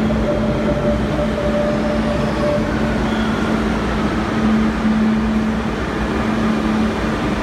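Barcelona Metro train pulling into an underground station, its cars running past the platform with a loud, steady hum and rumble. A higher steady tone over it stops about two and a half seconds in.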